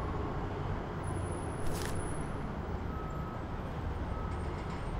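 Steady low outdoor rumble with no speech over it. There is a short papery rustle a little under two seconds in, as a book's cover is opened.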